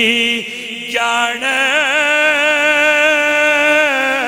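A man's voice chanting a devotional Punjabi refrain in praise of the Prophet, drawing each word out into long held notes with a wavering vibrato. There is a short dip, and a new note begins about a second in.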